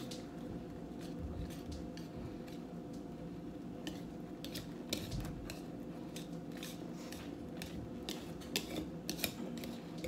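A wire whisk clicking against a mixing bowl as a mixture is whisked by hand, in short irregular strokes about two a second, over a steady low hum.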